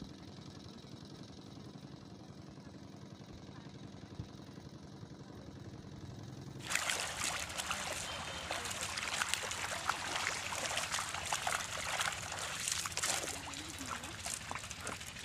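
A low steady hum, then about halfway through a sudden loud run of wet splashing and trickling, with many small crackles and clicks. It comes from a cast net full of fish in shallow muddy water.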